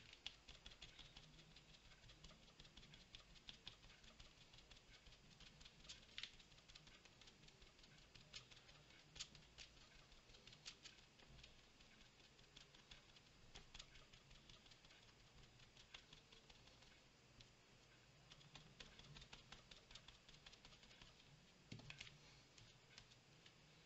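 Faint, quick light tapping and dabbing: a small foam disc pounced onto a paper tag and onto an acrylic block to pick up and lay down ink, in otherwise near silence.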